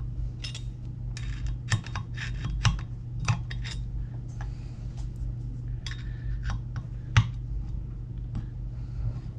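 Metal clicking and scraping as a steel tool works a wire retaining ring into the groove of a hydraulic cylinder: a string of sharp clicks, the loudest about seven seconds in, over a steady low hum.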